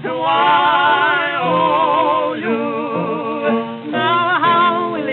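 Music from a 1912 acoustic-era ragtime gramophone record: held notes with a heavy vibrato over the accompaniment, between sung lines. The sound has no deep bass and no high treble.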